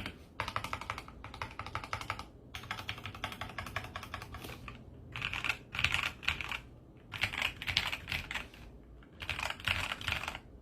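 Typing on a Royal Kludge RK84 mechanical keyboard modded with tempest tape, PE foam and clipped stabilizers: rapid runs of key clicks broken by short pauses, with the louder bursts of keystrokes coming in the second half.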